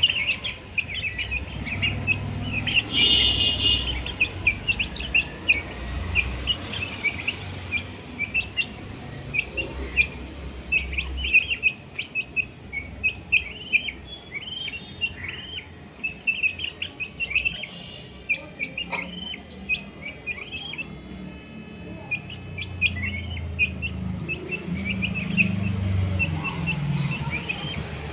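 Baby chicks peeping continuously: many short, high-pitched chirps overlapping one another. There is a brief louder sound about three seconds in, over a low background rumble.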